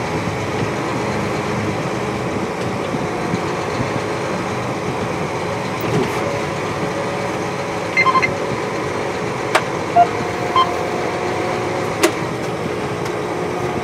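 John Deere 8235R tractor's six-cylinder diesel running steadily as it drives slowly, heard from inside the cab. A few short beeps sound over the engine past the midpoint.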